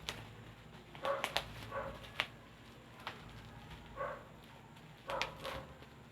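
A dog barking, several short barks about a second apart, with a few sharp clicks in between.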